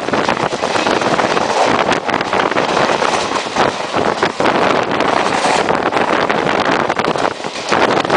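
Indian Railways passenger express train running at top speed: loud rushing wind on the microphone over the running noise of the train, with a busy clatter of short knocks throughout.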